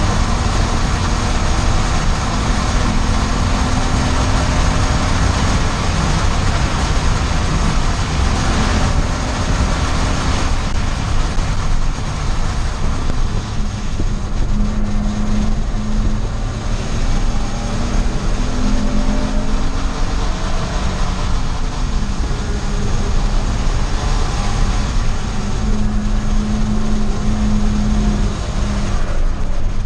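Race car engine running hard on track, heard from inside the car along with wind and road noise; its pitch rises and falls several times with throttle and gear changes.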